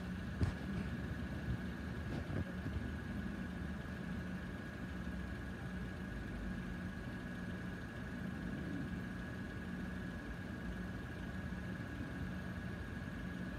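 Car engines idling in a queue with a low, steady hum, a faint steady high tone above it, and a couple of small clicks near the start.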